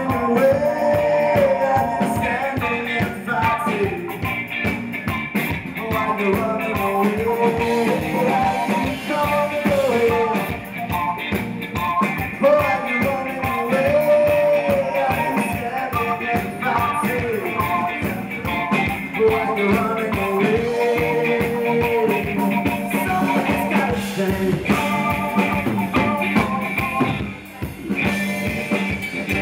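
Live rock band playing: electric guitar, keyboard and drums, with a male singer's melody over the top for most of it. The music dips briefly near the end.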